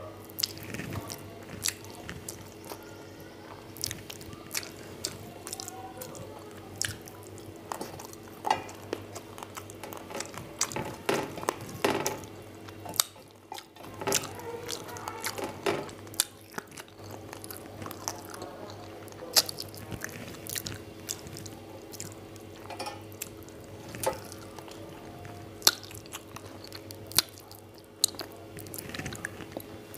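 Close-up eating sounds: chewing and wet smacking of rice and curry eaten by hand, with many sharp irregular clicks and an occasional crunch. A faint steady hum runs underneath.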